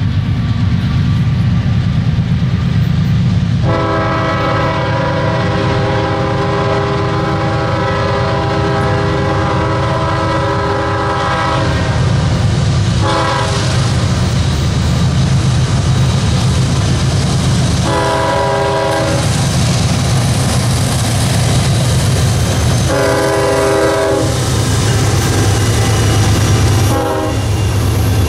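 Diesel freight locomotive sounding its multi-note air horn for a grade crossing as it approaches: one very long blast of about eight seconds starting a few seconds in, a short blast, then three more blasts of about a second each. The engines' low rumble runs under it throughout, as the train comes up and the locomotive passes close by near the end.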